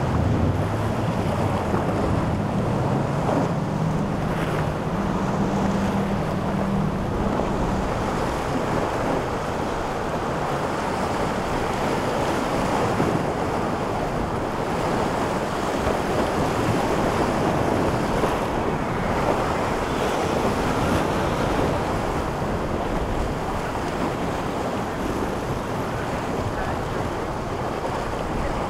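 Wind buffeting the microphone over the wash of surf, with a boat's engines droning low for the first several seconds before fading out.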